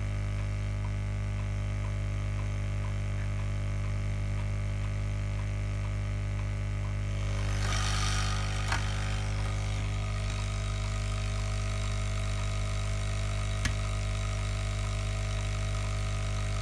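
Steady electric hum of a Lukey 852D+ hot air rework station's built-in air pump running. About seven and a half seconds in, a hiss swells for a second or so, and there are two sharp clicks, one just after the hiss and one near the end.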